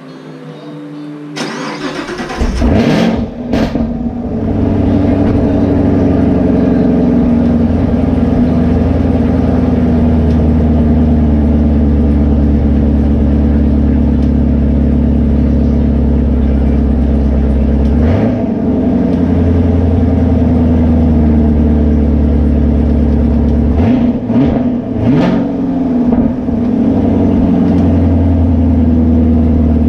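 Camaro SS 1LE's 6.2-litre V8 starting up about two seconds in with a loud flare, then idling steadily, the note briefly changing twice in the second half.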